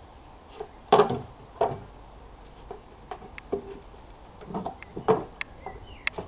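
Heavy steel pallet dismantling bar levering the planks of a wooden pallet off its stringers: sharp wooden knocks and cracks, a loud pair about a second in and another pair near the end, with lighter clicks between.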